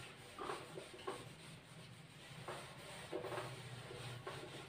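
Whiteboard eraser rubbing across a whiteboard in several short, faint strokes, wiping the board clean.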